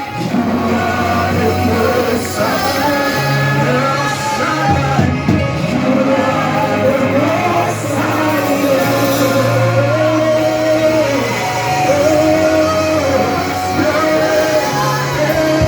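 Church worship song: voices singing a melody over a live band with long held bass notes.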